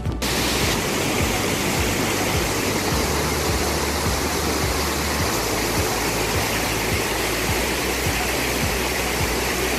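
River water rushing steadily over a low concrete weir, a loud, even white-water sound, with music playing faintly underneath.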